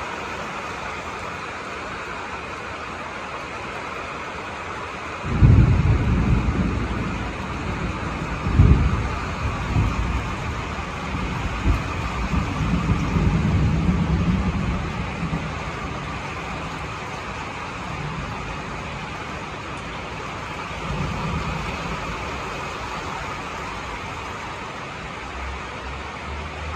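Steady rain hiss. About five seconds in, a sudden loud low rumble starts and rolls on in uneven swells for about ten seconds before fading, with a weaker swell later.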